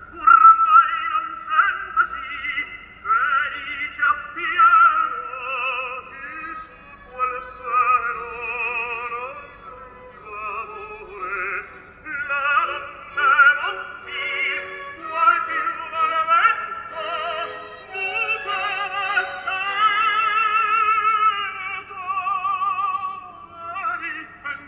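Recorded music played on a CD player: a voice singing long held notes with a wide vibrato.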